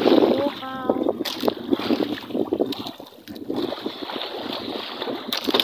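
Irregular knocks and clatter of a fishing longline being hauled in and fish unhooked over a plastic crate, over a steady wash of wind and water noise.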